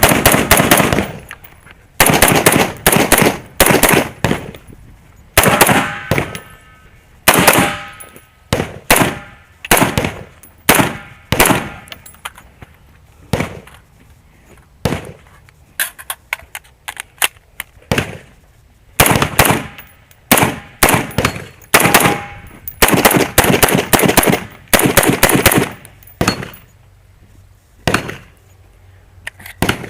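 Semi-automatic 5.56 AR-style rifle firing rapid strings of shots, in quick pairs and bursts, with short pauses between strings.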